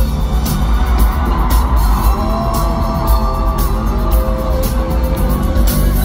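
Live pop music played loud through an arena sound system, with a heavy bass and a steady beat.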